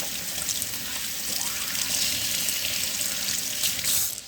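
Kitchen sink tap running with hands being washed under the stream; the water cuts off suddenly near the end.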